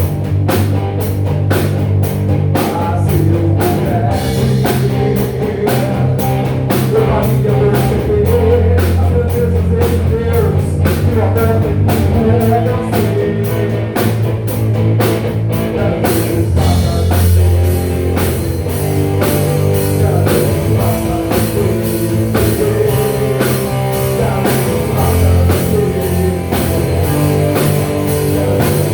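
Live rock band playing a song: drum kit keeping a steady beat over bass and electric guitar, with a voice singing. About halfway through, the drummer's cymbals open up into a brighter, washier ring.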